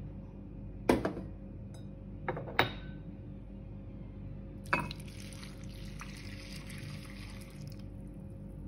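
Milk poured from a cup onto dry rolled oats in a glass bowl, splashing for about three seconds. Before the pour come a few sharp clinks of glass and crockery.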